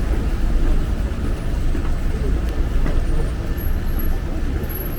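Steady city street noise: a continuous low rumble of road traffic, with a few faint, brief high-pitched tones over it.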